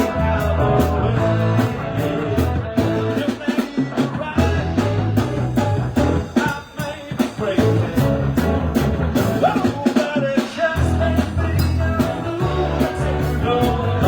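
A live band playing a song: guitar over deep bass notes and a steady drum beat.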